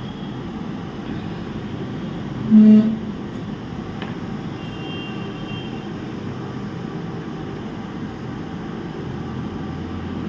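Hot-air rework station blowing steadily while a MOSFET is desoldered from a laptop motherboard, with one short louder sound about two and a half seconds in.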